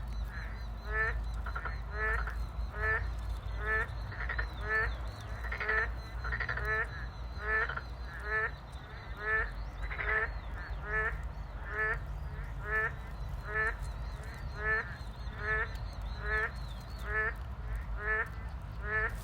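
An animal call repeated evenly about once a second, each a short pitched note with a rapid fluttering trill above it, over a steady low rumble.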